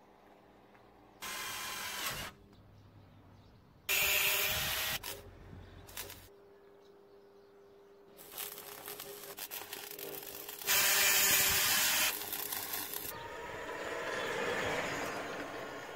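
Workshop tool noise in short separate bursts, each a second or so long and cut off abruptly, then a longer stretch from about 8 s. Near the end a small electric car drives past, its noise rising and falling.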